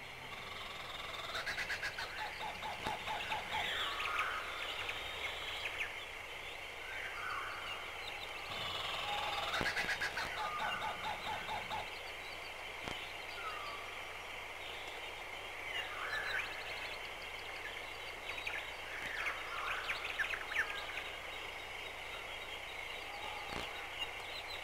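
Forest ambience: several birds calling with short, varied chirps and a few quick trills, over a steady high-pitched hum.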